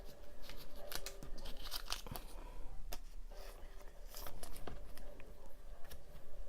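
Baseball trading cards and their pack wrapper being handled close up: a run of light clicks, slides and crinkles as the cards are flipped through.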